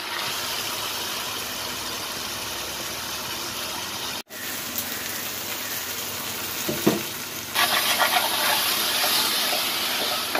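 Onion-tomato masala with yogurt sizzling in a non-stick frying pan. It cuts out for an instant about four seconds in, and the sizzle turns louder near the end as a spatula stirs the masala.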